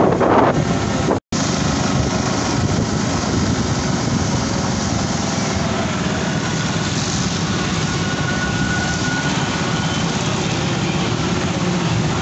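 Motorcycle engine running steadily while riding through a rain-flooded road, with wind on the microphone. The sound drops out for a moment about a second in.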